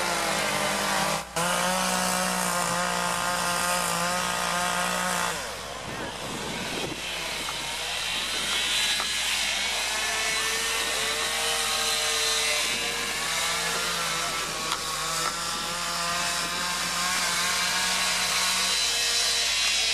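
Gas chainsaw running at high revs as it cuts into a standing log. The note holds steady for about five seconds, drops lower and unsteady for a few seconds, then climbs back and wavers as the cut loads and eases before running steady again.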